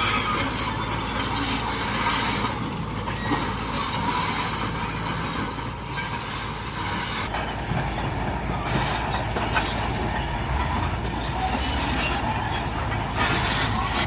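Heavy earthmoving machine's diesel engine running steadily, with metal squealing and clanking over it.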